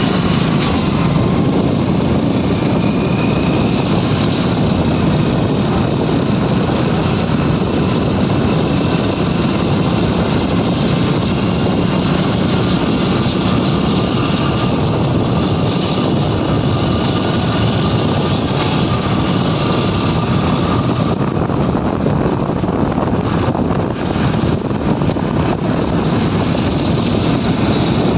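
Steady engine and road noise of vehicles moving at highway speed, with wind rushing over the microphone.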